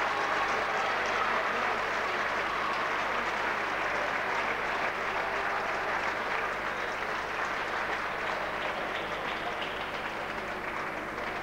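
Arena crowd applauding, a dense steady patter of clapping that eases off slightly near the end.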